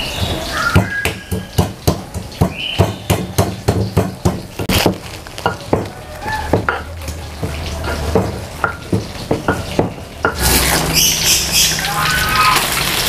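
Stone pestle pounding candlenuts and bird's-eye chilies in a stone mortar, a quick run of irregular knocks and scrapes. About ten seconds in this gives way to fish frying in hot oil in a wok, a steady sizzle.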